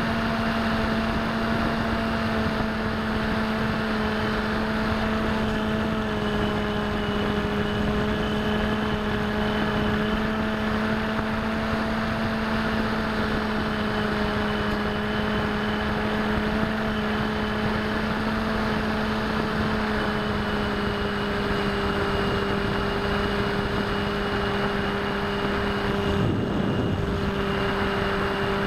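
Bixler v1.1's electric pusher motor and propeller running steadily, a steady hum over a constant rush of wind, picked up by a keychain camera riding on the plane. About two seconds before the end the sound briefly dips and wavers.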